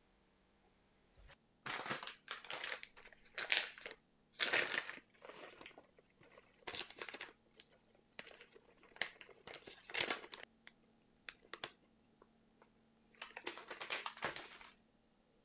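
A flour bag crinkling and rustling in irregular bursts as flour is shaken out of it into a tray. The bursts start about a second in and stop shortly before the end.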